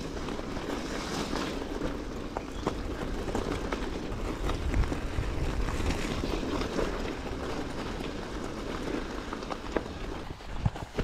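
Steady rush of wind on the microphone and rolling noise of a bicycle moving along the path, with scattered small clicks and rattles. It eases off near the end, leaving a few separate knocks.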